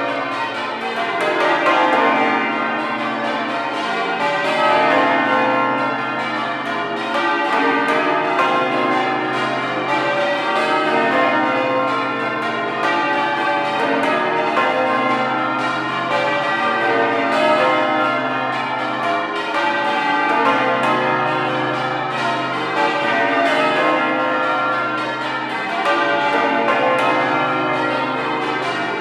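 Exeter Cathedral's ring of twelve church bells in full change ringing: an unbroken, even stream of bell strikes, with the deep hum of the heavier bells sustained underneath.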